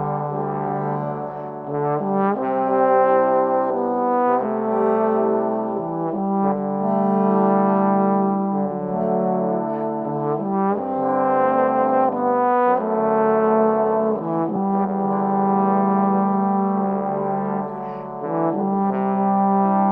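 A bass trombone and a trombone quartet playing together in harmony, holding chords that change every couple of seconds.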